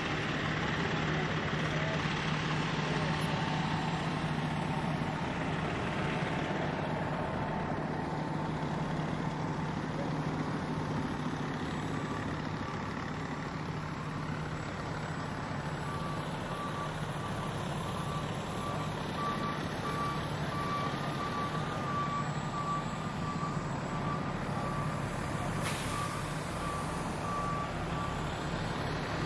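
Fire trucks' diesel engines running steadily, with a truck's reversing beeper sounding in an even series of beeps through the second half. A short hiss near the end.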